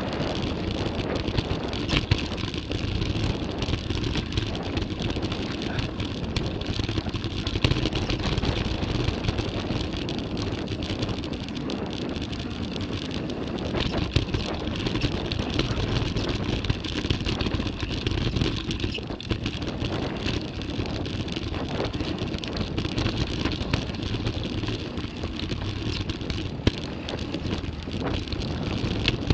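Downhill mountain bike riding a rough trail, picked up close by the camera: a steady rush of tyres on dirt mixed with wind on the microphone, with frequent clattering knocks and rattles from the bike.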